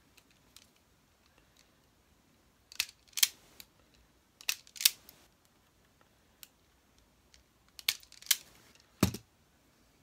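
Sharp snips and clicks of a hand cutting tool working on an electrical cable, in three short clusters. A duller knock comes near the end.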